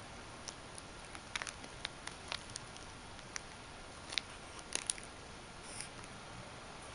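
Metal ball chain clicking and rattling in short, irregular ticks as a kitten bats at it and bites it.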